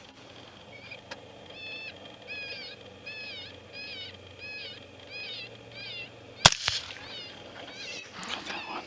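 FoxPro electronic predator caller playing a high, wavering squealing distress call, repeated nearly twice a second in identical loops. A single suppressed .223 rifle shot cracks about six and a half seconds in, and the calling carries on after it.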